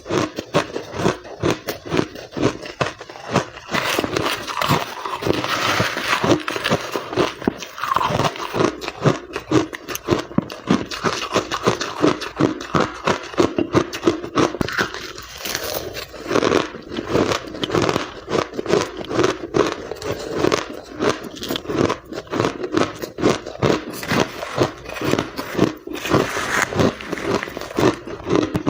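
Ice being bitten and chewed close to the microphone: a fast, continuous run of crunches, several a second.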